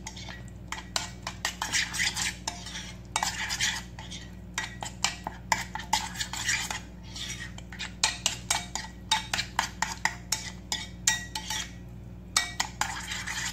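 A spoon stirring a thick yogurt-and-spice marinade in a glass bowl, with many irregular clinks and scrapes against the glass.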